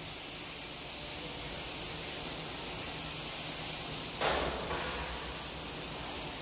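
Flux-cored arc welding on carbon steel: the arc runs with a steady hiss, with a brief louder burst a little over four seconds in.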